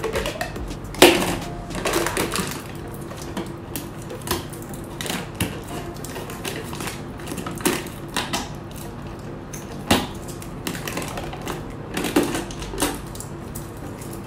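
Foil inner seal on a plastic whey protein tub being pierced, torn and peeled off: irregular crinkling crackles and clicks, loudest about a second in.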